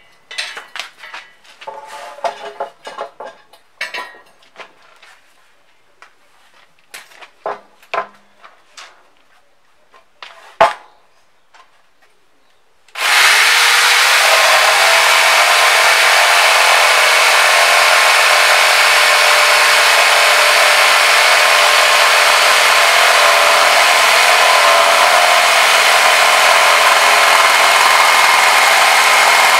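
A few scattered knocks and clicks, one sharp knock standing out, then about 13 seconds in a corded jigsaw starts and cuts steadily through a solid oak board, loud and unbroken.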